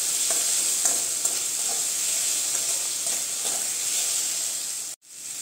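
Spiced cabbage and joha rice sizzling steadily in a metal kadai while a wooden spatula stirs and scrapes through it, with light taps against the pan. The sound drops out briefly near the end.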